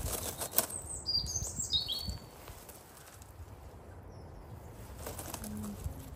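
Rustling and a few sharp clicks of a jacket and rose stems being handled low in a pruned rose bush. A small bird chirps a few short notes about a second in, and the rustling goes on more quietly afterwards.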